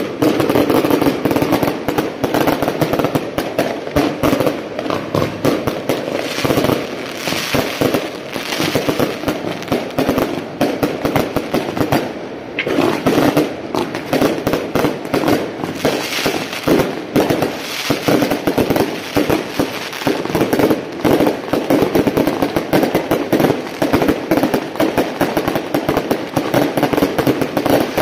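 Strings of firecrackers going off nonstop in a dense, rapid crackle of bangs, with a brief lull about twelve seconds in.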